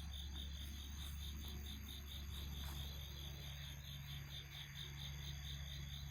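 Crickets chirping in a steady pulsing rhythm, about five pulses a second, with a low steady hum beneath.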